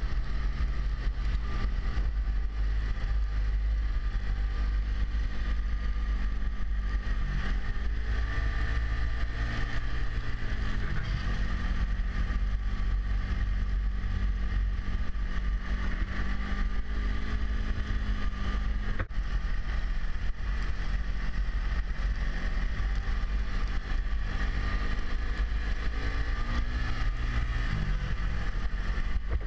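Snowmobile engine running under way, its pitch rising and falling a few times as the throttle is eased off and opened again, with wind rushing on the microphone.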